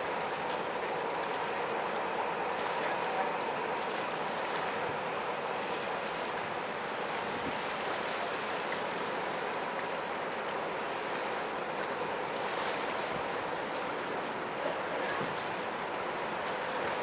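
Steady wash of water and wind noise with a faint, even engine hum from passing ships.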